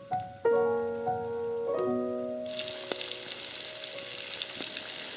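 Background music with a few held notes. About halfway through, a loud sizzle starts abruptly: walleye frying in a pan, with the music carrying on faintly underneath.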